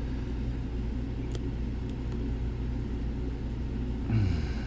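Steady low background rumble, with a few faint light clicks from a lock pick working the pins inside a Lockwood Twin padlock. A brief murmured grunt comes near the end.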